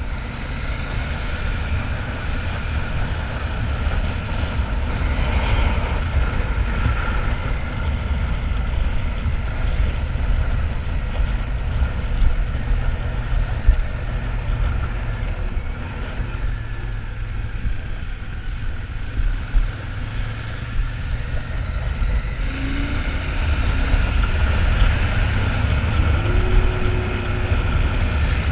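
Royal Enfield Shotgun 650's parallel-twin engine running steadily on the move, under a heavy low rumble of wind on the microphone.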